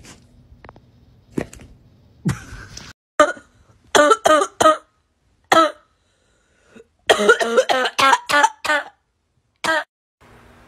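Short, harsh coughs in clusters: a single one, then three, another single, a quick run of about eight, and a last one near the end. A soft thump and a few faint clicks come before them.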